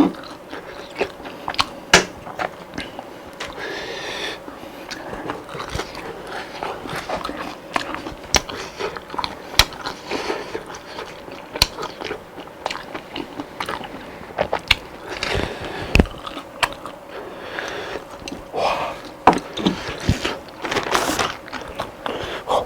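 Close-up biting and chewing of crispy fried food, with many sharp crunches throughout and a few louder bites.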